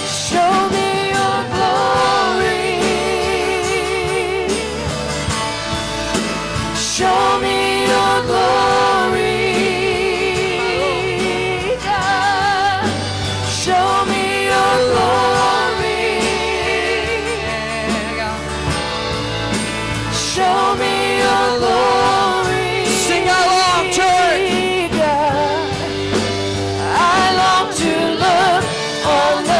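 Live congregational worship music: a singer holds long, wavering notes with vibrato over a band's sustained low chords.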